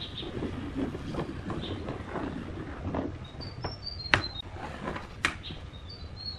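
Pen and wooden stick scraping and rubbing over a pine board as a circle is marked out, with two sharp taps about a second apart past the middle. Short high bird chirps come in twice.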